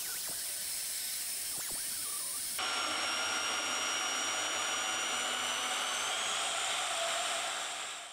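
Bandsaw cutting through a steel axe head: a steady mechanical whine with scraping of the blade in the metal. About two and a half seconds in the sound jumps to a louder, steadier run, and it fades out near the end.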